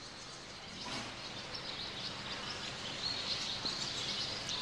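Faint, steady background noise of a large indoor riding arena, with a few faint, short, high chirps here and there.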